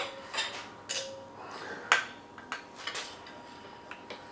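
Light metal clicks and clinks from a piston being fitted onto an engine's connecting rod: a handful of short taps, the sharpest about two seconds in.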